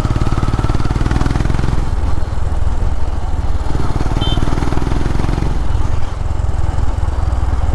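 Motorcycle engine running steadily while riding along, with a low, even rumble.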